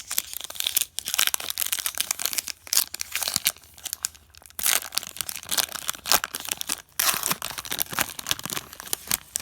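The wrapper of an Upper Deck hockey card pack being torn open and crinkled: a dense, crackling rustle with short lulls about four and a half and seven seconds in.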